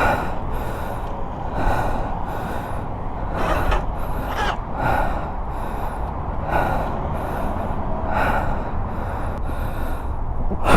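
Heavy, irregular panting breaths close to the microphone, about one every one to two seconds, from someone out of breath after push-starting a motorcycle. Under them is a steady low rumble of wind and distant traffic.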